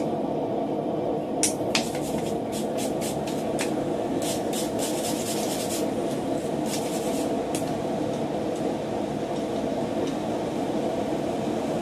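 Steel wire brush scrubbed in quick back-and-forth strokes over a freshly forged iron bracket on the anvil, brushing off the forge scale, in runs of several strokes a second through the first two-thirds. Under it a steady background roar.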